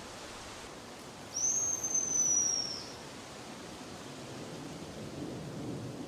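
Hazel grouse decoy call blown once: a single long, high, thin whistle of about a second and a half that dips at its end, over a steady background hiss.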